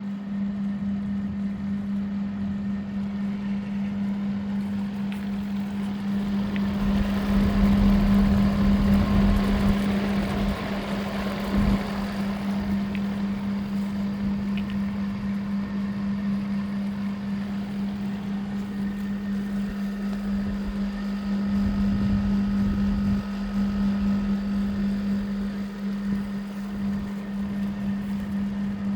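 Small 2000s LG 0.5-ton straight-cool air conditioner running: a steady low hum with air noise over it. The noise swells with a low rumble for a few seconds about a quarter of the way in, and there is a single knock soon after.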